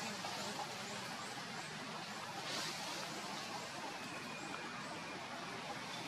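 Steady outdoor background hiss with faint high chirps repeating about twice a second, and a brief soft rustle about two and a half seconds in.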